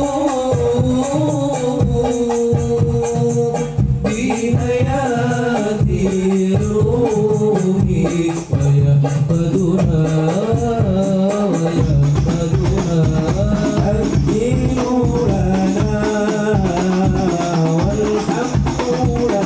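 Devotional shalawat singing with hand percussion and jingling rattles, amplified through a small PA sound system.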